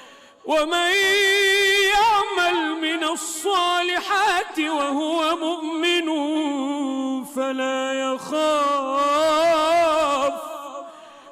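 A man chanting Quran recitation in melodic tajwid style, unaccompanied, drawing out long ornamented notes that waver up and down in pitch. The voice comes in about half a second in and fades away near the end.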